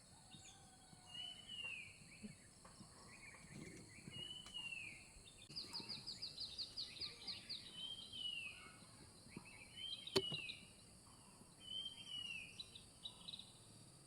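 Birds calling: a short rising-and-falling note repeated every second and a half to two seconds, with a quick trill of rapid high notes near the middle. There is a single sharp click about ten seconds in.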